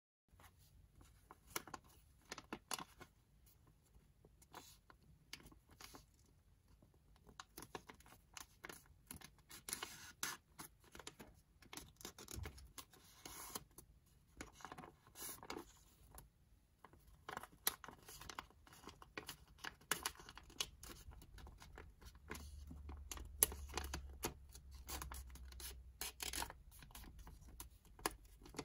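Origami paper being folded and creased by hand: faint, irregular crackling and rustling of the stiff sheet under the fingers.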